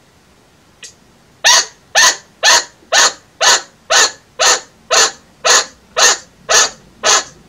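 Chinchilla giving its alarm-call bark, a string of short sharp barks about two a second, starting about a second and a half in. This is the alarm call a chinchilla makes when it takes something for a predator and is a little scared.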